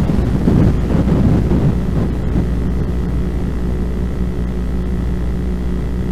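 Steady electrical hum and low rumble on an old videotape recording, with some irregular rustling noise in the first two seconds.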